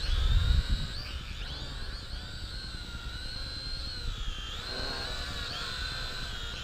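XK X260 brushed quadcopter's motors and propellers whining in flight, the pitch wavering up and down as the throttle changes. A low rumble sits under the whine in the first second.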